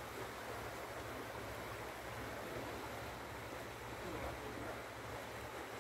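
Floodwater from an overflowing creek rushing across a paved street, a steady even rush of moving water.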